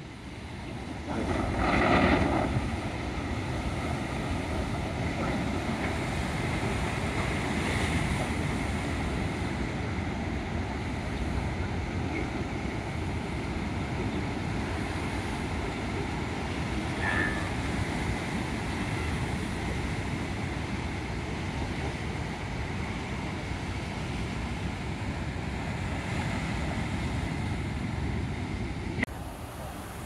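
Ocean surf: the steady rush of big waves breaking, with wind buffeting the microphone. It swells louder briefly about two seconds in.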